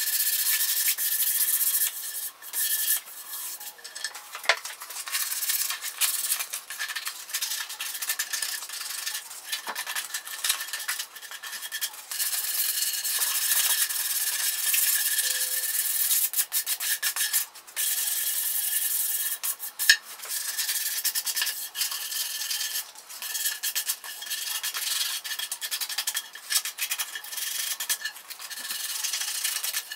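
Sandpaper rubbed by hand over an ash Telecaster body, sanding back dried white grain filler: a continuous scratchy hiss of back-and-forth strokes, broken by brief pauses.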